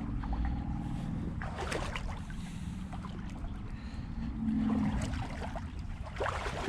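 Boots wading through a shallow rocky creek: water sloshing and trickling with a steady low rumble, and scattered clicks and knocks of footing on stones. A brief low hum about two-thirds through.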